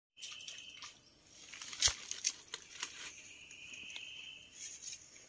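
Rustling of dry leaves and twigs with several sharp snaps and clicks, the loudest a little before two seconds in, as the fishing pole and litter are handled. A steady high-pitched tone sounds twice, briefly near the start and for over a second in the middle.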